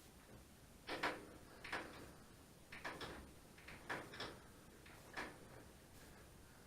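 Wet rubber hand grip being twisted and pushed onto a steel ATV handlebar: about six short rubbing squeaks in a row, faint.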